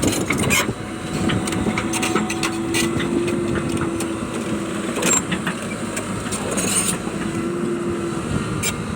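Hitachi excavator's diesel engine running under load with a steady whine that drops out for a few seconds in the middle, and irregular knocks and clatter of rock being broken and moved.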